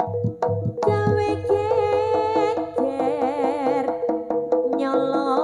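Live Javanese jaranan music: hand-drum strokes over a steady held tone, joined from about a second in by a high melody line with wide vibrato.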